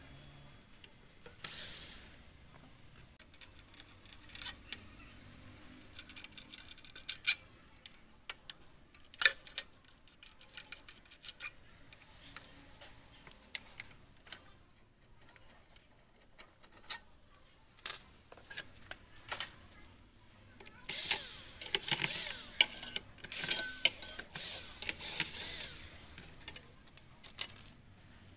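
Scattered metallic clicks, taps and knocks of hand tools on the sheet-metal chassis and brackets of an LCD TV being taken apart, with a denser stretch of scraping and rattling about three quarters of the way through.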